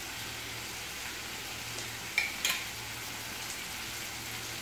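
Onions, tomatoes and chilli powder sizzling steadily in oil in a kadai. Two short clicks sound about two seconds in.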